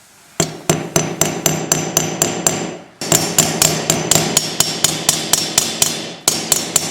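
Hammer peening the rivets of a new sprocket nose on a chainsaw guide bar. The light metallic blows come about four a second with a ringing tone, in three runs broken by short pauses.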